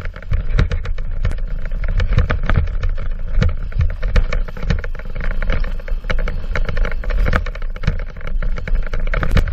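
Mountain bike being ridden fast over a rough, rocky trail: a dense run of rattles, clatters and knocks from the frame and wheels hitting rocks, over the steady rumble of wind on the microphone.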